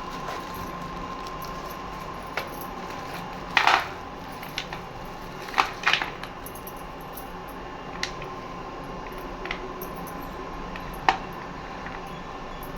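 Small hard slate pieces clicking and clinking against each other as they are handled, in irregular light knocks with a louder cluster near the middle. A steady hum runs underneath.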